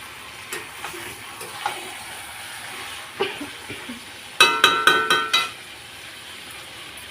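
Chicken curry sizzling in a kadhai while a metal spoon stirs it with scattered scrapes and clicks, then about four seconds in a second-long run of quick, ringing metal clanks against the kadhai.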